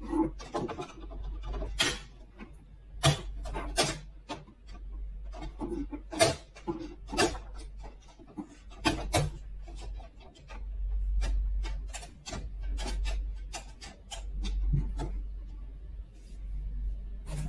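Plastic doors of a toy horse stable being swung open and shut by hand: a run of irregular sharp clicks and taps as the small doors knock against their frame, with a low rumble from about ten seconds in.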